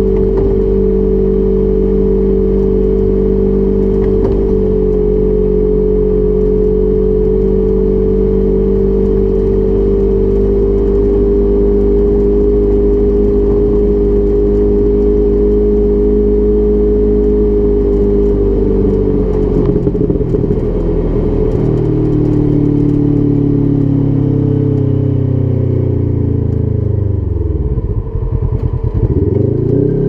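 Polaris RZR XP 1000 side-by-side engine running at a steady pitch under way. About two-thirds through it eases off to a lower pitch, and near the end it drops sharply and revs back up.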